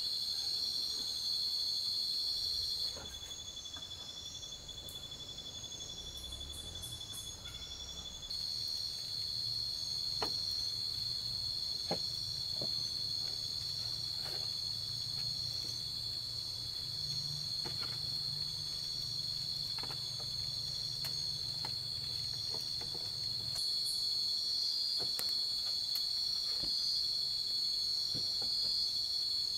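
Steady high-pitched chorus of night insects in the forest, dropping quieter for a few seconds near the start before coming back. A few faint knocks on the bamboo floor are heard during it.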